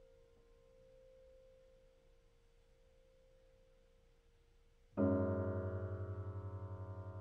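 Grand piano: the faint tail of a held dyad fades away for about five seconds. Before it has quite died out, a new major-second dyad is struck loudly and rings on, decaying with a rapid, even pulsing in loudness.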